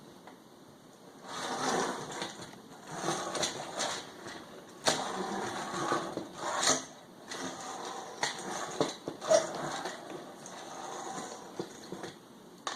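Hand work on a car radio's display front while its small screws are taken out: uneven scraping and rattling with many sharp clicks, starting about a second in.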